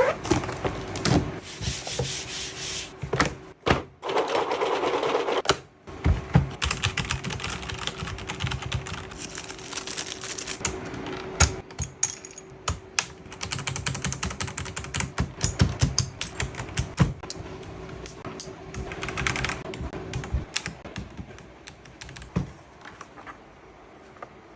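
Computer keyboard keys and plastic keycaps clicking and clattering in quick, irregular runs as the keyboard is typed on and its keycaps are handled. A faint steady hum lies underneath and stops about 20 seconds in.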